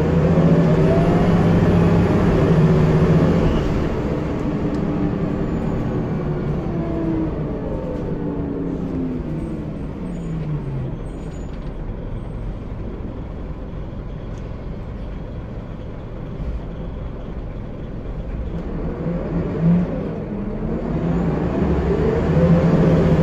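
Scania L94UB single-deck bus heard from inside the saloon, its engine pulling with a rising pitch, then easing off with a falling note about seven to eleven seconds in. It runs quieter for a while, and after a short thump about twenty seconds in it climbs in pitch again under load near the end.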